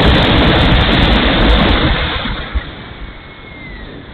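Wind rush and rumble on the onboard camera microphone of a small electric RC model Hawker Hurricane. The noise falls off sharply about halfway through as the model slows, leaving a faint whine from the electric motor that drops slightly in pitch.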